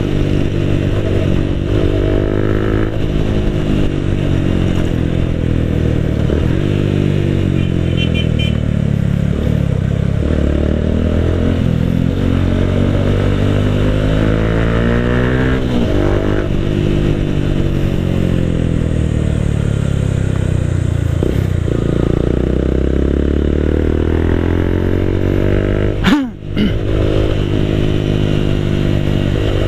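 Motorcycle engine and exhaust under way, its pitch climbing with the throttle and dropping back again and again as the rider shifts and rolls off. Near the end the sound briefly cuts out and drops sharply in pitch.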